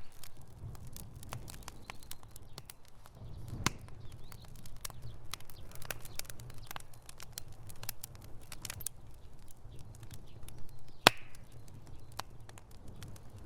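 Wood fire burning in a fireplace: irregular crackles and sharp pops over a low, steady rush of flame, with the loudest pop about eleven seconds in.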